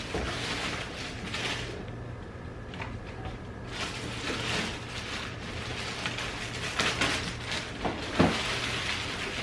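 Rustling and handling of packaging as a foot spa machine and its accessories are taken out of the box, with a few light knocks.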